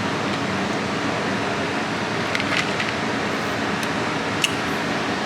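Steady rushing of electric shop fans running, with a few faint clicks and rustles of small items being handled, one sharp tick about four and a half seconds in.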